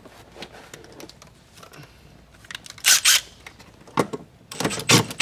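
Makita 18-volt cordless impact driver running a socket down onto a ground bolt, pulling two ground straps tight against bare metal. Two short bursts come about three seconds in, a third about a second later, and a longer burst starts near the end.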